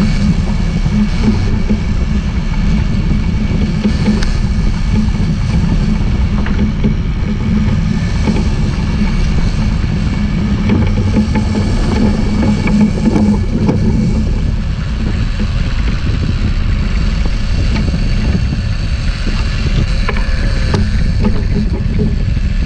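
Steady low rumble of a sport-fishing boat's engines running under way, with the wash of the wake and wind buffeting the microphone.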